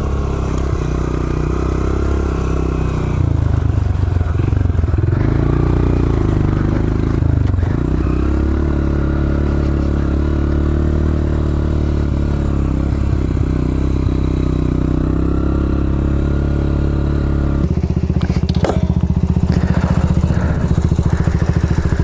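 Honda CRF125F's small air-cooled four-stroke single-cylinder engine running under changing throttle on a trail climb, its pitch rising and falling. About eighteen seconds in it settles to a slower, even beat.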